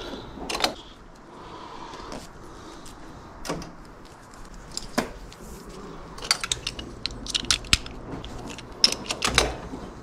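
A float switch and its wire being handled: scattered light clicks and rattles, coming thick and fast from about six seconds in.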